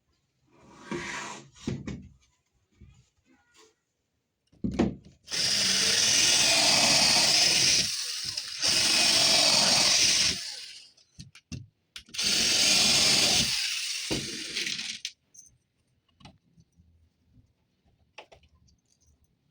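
A handheld power tool working wood in three runs of two to three seconds each, with short bursts and knocks before the first run.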